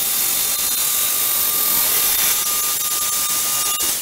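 Jigsaw with a scroll blade cutting through half-inch MDF: a steady, loud motor whine over the rasp of the blade, starting to wind down at the very end.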